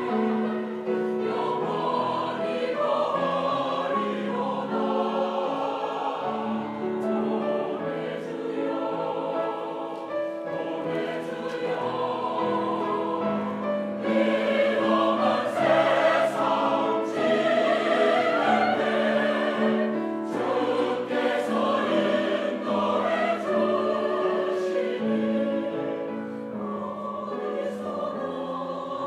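Mixed church choir singing a Korean hymn in parts, with held chords. It swells louder about halfway through and softens again near the end.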